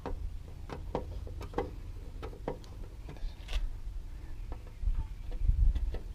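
Irregular clicks and scrapes of a screwdriver working at the screws of an RV furnace vent cover, with a low rumble that swells about five seconds in. The screws are stuck fast.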